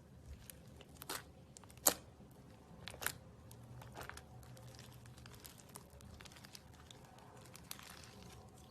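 Scattered crinkling and crackling handling noises with a few sharp clicks, the loudest about two and three seconds in.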